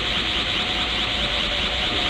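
Anime ki-aura sound effect of a Super Saiyan God transformation: a steady rushing energy hum with a fast, even shimmer high up over a low rumble.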